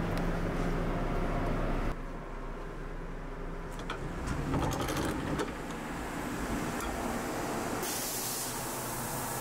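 Steady low hum inside a Kintetsu AONIYOSHI train carriage. About four seconds in come clicks and a brief swell of rumble as the door at the end of the car is worked, and near the end a short high hiss.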